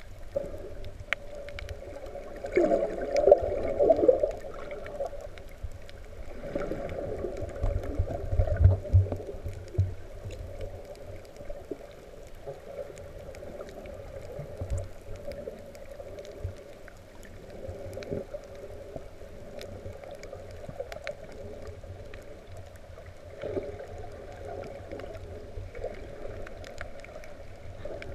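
Underwater surge washing over a shallow coral reef, heard muffled through an underwater camera housing. The sound swells and fades in waves and is loudest twice in the first ten seconds, with a deep rumble in the second swell. Scattered faint clicks run throughout.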